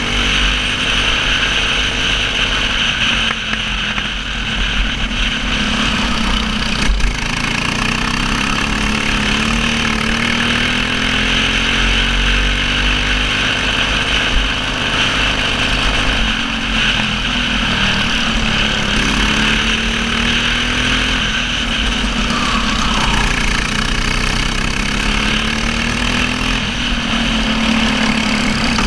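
Racing kart engine at full race pace, picked up by an onboard camera. Its revs climb on the straights and drop off into the corners, over and over.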